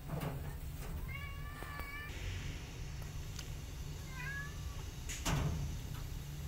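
Kitten meowing in a high, thin voice: one drawn-out meow about a second in, then a shorter wavering one around four seconds. A brief thump just past five seconds is the loudest sound.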